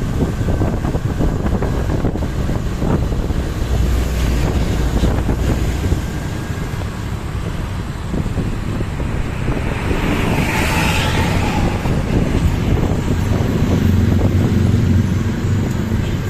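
Road traffic passing with heavy wind buffeting the microphone; a brief hiss a little past the middle, and a louder engine hum in the last few seconds.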